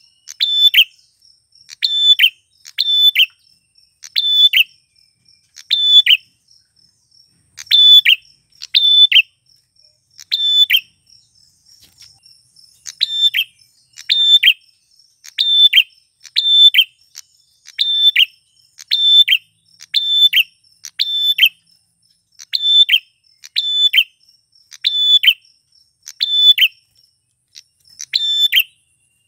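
Male prenjak klawu (a prinia) calling over and over, one short sharp call about every second with a brief pause near the middle. A faint, steady, high buzz runs underneath.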